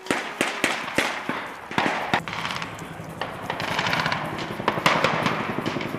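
Several rifles firing blank rounds through blank-firing adaptors: a fast, irregular run of sharp shots from more than one gun, some close together in quick strings.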